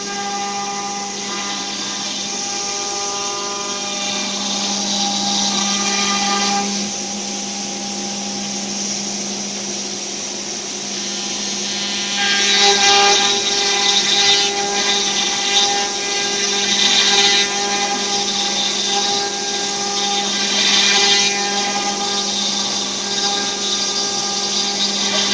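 CNC router's electric spindle running with a steady whine while its bit routes a pocket into a wooden board. The cutting noise grows louder and rougher about halfway through, swelling and easing as the bit moves through the wood.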